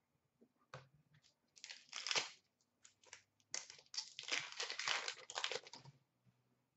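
A 2015-16 Upper Deck SP Authentic hockey card pack wrapper being torn open and crinkled by hand: a short burst of crinkling about two seconds in, then a longer run of crinkling and tearing from about three and a half to six seconds.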